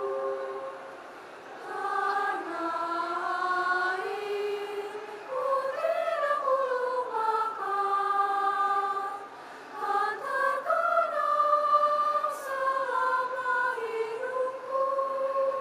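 Junior high school choir of girls and boys singing in parts: sustained chords that shift pitch from phrase to phrase, with brief breaks about a second in and again near the middle.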